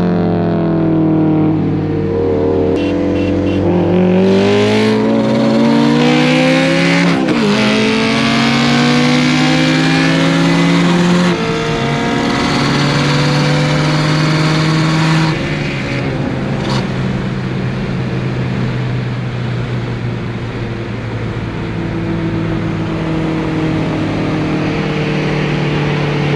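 Honda S2000's four-cylinder engine and exhaust pulling under way: the revs climb and drop sharply at a gear change twice, about seven and eleven seconds in, then settle into steadier running with smaller rises and falls.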